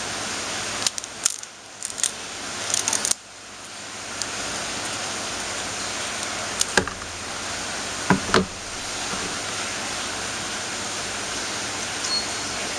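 Scissors cutting through a small crab's shell and legs: several short, sharp snips in small clusters over a steady background hiss.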